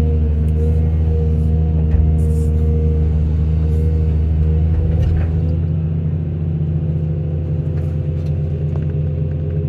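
Heavy diesel engine running steadily with a deep rumble, easing off slightly about halfway through.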